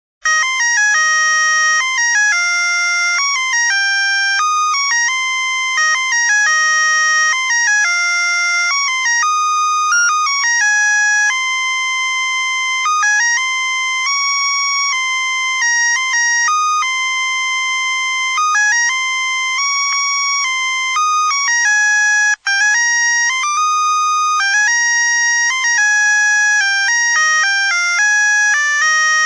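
A musical Christmas light string's melody chip playing a tune in thin electronic beeping tones, one note at a time, with a brief break about 22 seconds in.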